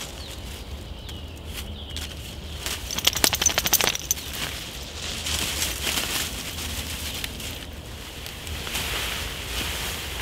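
Woodland birds singing faintly and steadily, with a burst of rapid flapping about three seconds in, around ten flaps a second for about a second, the loudest sound.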